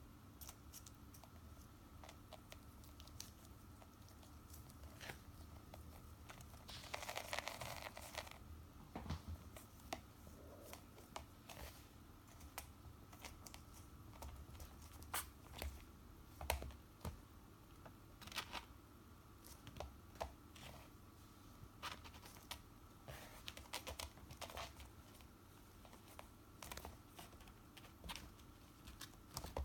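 Faint scattered clicks and scratches of a kitten playing with a paper string, its claws catching on it and the string being batted about. There is a longer scratchy rustle about seven seconds in.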